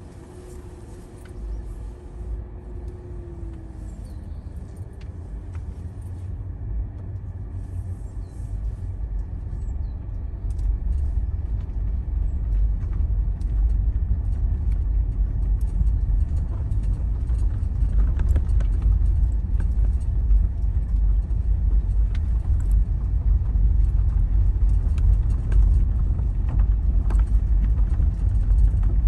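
Low, steady motor-vehicle rumble that grows louder over the first dozen seconds and then holds steady.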